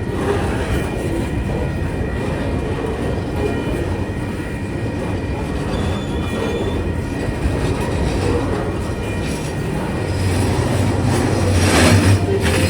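Tasrail freight train rolling by, its wheels rumbling over the rails with some clickety-clack and a faint thin wheel squeal. About ten seconds in, a deeper engine drone grows louder.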